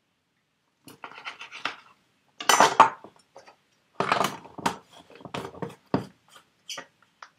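Kitchen handling noise from a knife on a plastic cutting board and orange pieces being pressed into a small plastic blender cup, then the cup's blade lid being screwed on. It comes as irregular clatters, knocks and clinks, loudest about two and a half seconds in.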